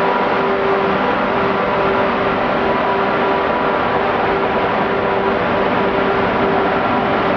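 Renfe class 269 electric locomotive passing at close range with its passenger coaches: a loud, steady mechanical rush with a hum that comes and goes.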